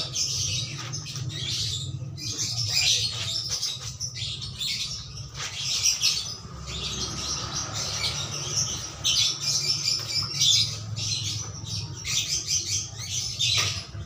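Small birds chirping and trilling in quick irregular bursts, over the splashing and rubbing of clothes being hand-washed in a plastic tub of water, with a steady low hum underneath.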